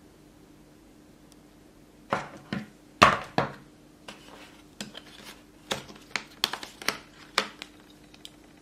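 Handling clatter: a rapid, irregular series of sharp clicks and knocks as a small hard-plastic rail adapter is pried out of its moulded packaging tray. It starts about two seconds in and is loudest a second later.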